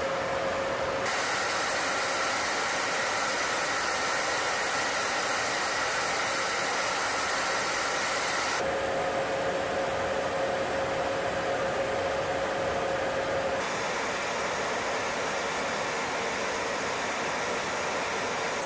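Steady rushing noise of airflow and engines heard inside a B-52H Stratofortress bomber in flight, with a faint steady hum. The noise shifts abruptly in tone about a second in, around nine seconds in and again near fourteen seconds.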